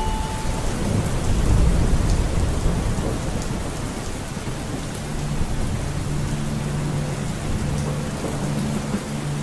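Steady heavy rain with thunder rumbling, the rumble strongest in the first two seconds.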